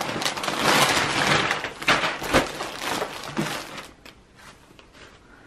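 Plastic mailer bag rustling and crinkling as it is handled and a clothing item in a clear plastic bag is pulled out, with a few sharper crackles about two seconds in. The rustling fades to faint handling clicks for the last couple of seconds.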